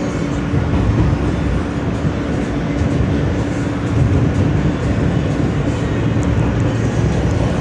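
R160 subway car running between stations, heard from inside: a steady rumble of wheels on rail with one steady hum underneath.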